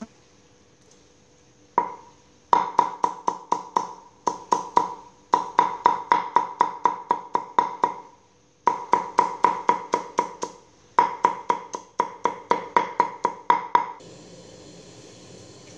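Knife chopping garlic on a thick wooden chopping board: rapid knocks of the blade on the wood, about five a second, each with a short woody ring. They come in four runs with brief pauses.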